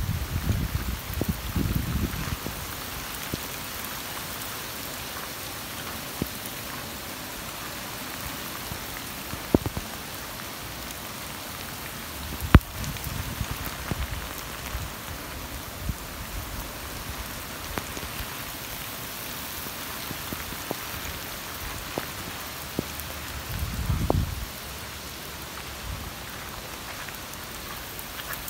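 Steady rain with scattered drips, a sharp knock about halfway through, and low rumbles at the start and again near the end.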